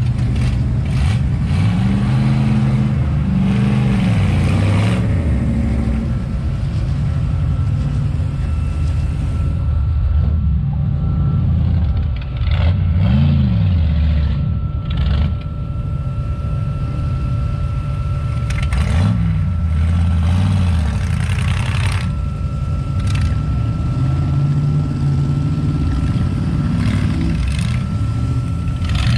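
Off-road 4x4 truck engines revving, rising and falling in pitch several times over a steady rumble of engine noise.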